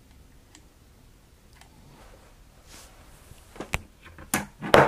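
Hard plastic Mattel WWE Elite action figures knocking against each other and the surface they stand on. Several sharp clacks come in the last second and a half, the loudest near the end.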